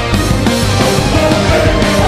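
Loud rock music with guitar, playing steadily.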